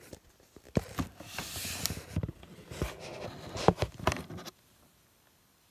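Handling noise: a run of knocks, clicks and rustling as a phone is moved around and set down among cardboard, ending suddenly about four and a half seconds in, after which the room is nearly silent.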